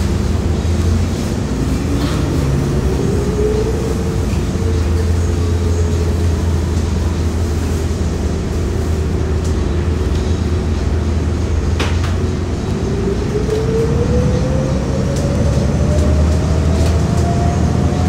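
Inside a Hometown Trolley streetcar-style bus on the move: a steady low engine hum, with a whine that rises in pitch twice as the trolley gathers speed.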